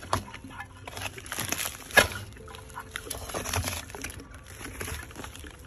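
Galvanized metal chicken waterer being twisted and worked against its base pan, which is frozen up with droppings: metal scraping and knocking, with one sharp clank about two seconds in.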